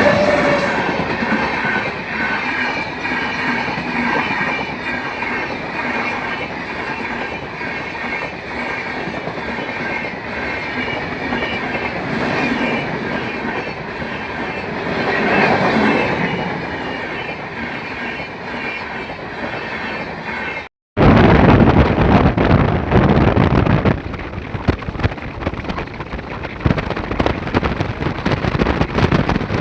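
A train running on the rails, a steady rumble with faint high wheel squeal that swells twice. About two-thirds of the way through it cuts off abruptly to a louder, gusting rushing noise.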